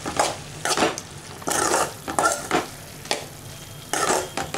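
A spoon stirring green beans curry in a cooking pan, about six strokes against the pan, mixing in a little added salt.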